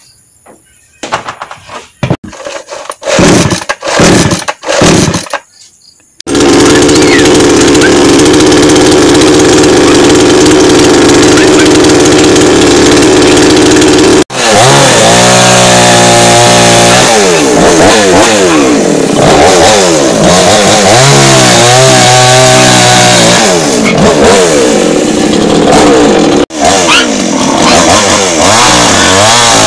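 Two-stroke Stihl chainsaw being pull-started: several short sputtering bursts, then it catches about six seconds in and runs steadily at a high, even speed. From about halfway on, it revs up and down over and over as it cuts into tree branches.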